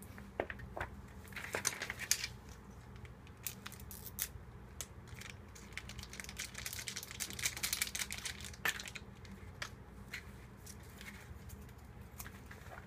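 Wooden chopsticks clicking and scraping in a bowl of UFO instant yakisoba as the noodles are mixed. Around the middle a small seasoning packet is torn open and crinkles as its contents are shaken over the noodles.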